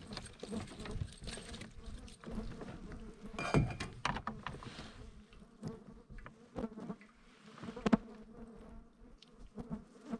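Flies buzzing close around, a steady hum, with a few sharp knocks and clicks, the loudest about three and a half and eight seconds in.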